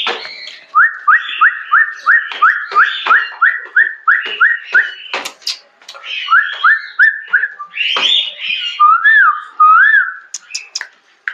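A person whistling to call goat kids, which come to the whistle. He gives a rapid run of short upward-sliding notes, about three a second, pauses, whistles another run, then ends with two longer wavering notes. Short sharp taps of the kids' hooves on the concrete steps sound in between.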